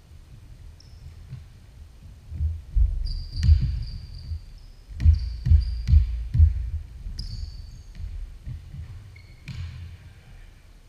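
Basketball dribbled on a hardwood gym floor: a run of deep thumps, about two a second, in the middle stretch. Sneakers squeak briefly on the wood in between.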